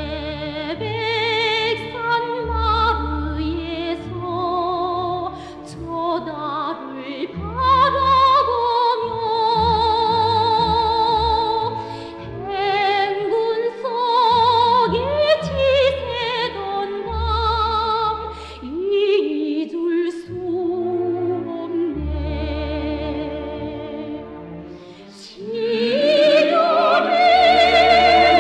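Operatic, orchestral-style music: a melody with strong vibrato over low bass notes, swelling fuller near the end.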